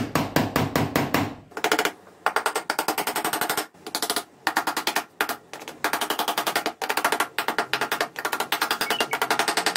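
A hammer tapping small nails into a wooden edge strip, in quick runs of many light, rapid strikes broken by short pauses.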